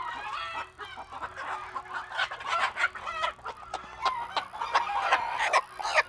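Bantam chickens clucking and squawking in a rapid string of short calls.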